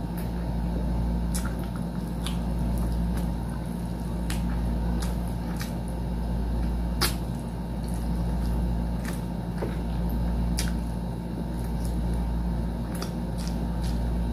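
Close-miked eating of sauced fried chicken: wet chewing and lip-smacking with scattered sharp clicks and small crunches, over a steady low hum.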